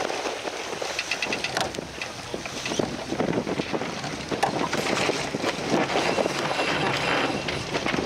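Wind buffeting the microphone over water rushing and splashing along the hull of a heeled sailboat under way, with scattered knocks and rattles from the boat and rigging.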